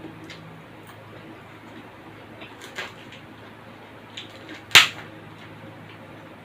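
Quiet eating sounds: a few small clicks, with a louder group around the middle and one sharp click about three-quarters through, over a steady low hum.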